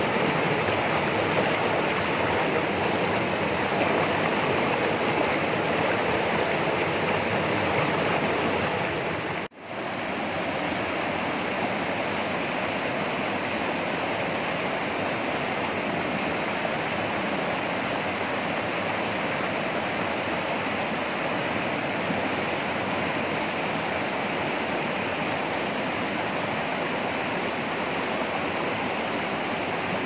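Steady rush of flowing water, with a sudden brief dropout about nine and a half seconds in, after which it carries on slightly quieter.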